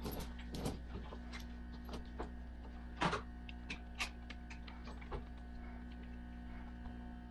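Steel chain links of a tractor-tire traction device clinking and rattling as they are handled and hooked on the tire. The clinks come at irregular times, the loudest about three seconds in, over a steady low hum.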